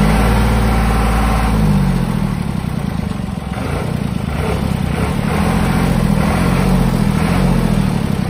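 Kubota M1-55 tractor's diesel engine running, heard from the driver's seat, its pitch rising and falling a little twice.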